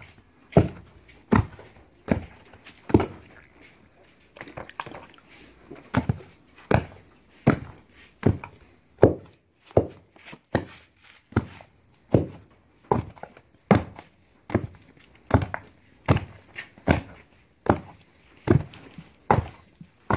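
Wooden pestle pounding boiled cocoyam paste for achu in a wooden mortar: steady, regular dull thuds, a little more than one a second, softer for a couple of seconds near the start.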